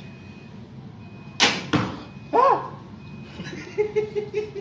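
A barebow recurve with Nika limbs loosing an arrow: a loud sharp crack of the string on release about one and a half seconds in, then a second sharp knock a moment later, followed by a short falling-pitched sound.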